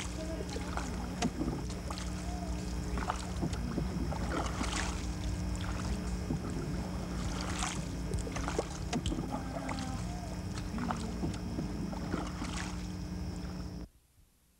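Water splashing and mud squelching under wading footsteps in shallow mangrove water, irregular splashes over a steady low hum. It cuts off suddenly near the end.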